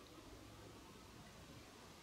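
Near silence: faint steady background noise.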